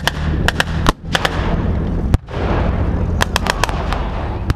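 Reenactment blank gunfire: scattered rifle and machine-gun shots cracking across the field, with a single heavier boom about two seconds in.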